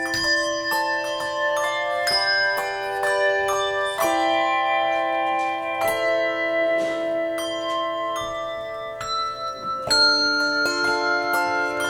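Handbell choir playing: bells struck about every half second, their ringing notes overlapping into sustained chords.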